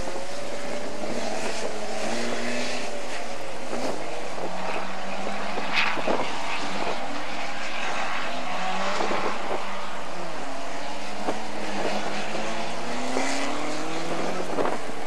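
Rally car engines revving hard and changing gear as saloon cars race past, the pitch climbing and dropping back again and again. A few sharp cracks cut through, the loudest about six seconds in.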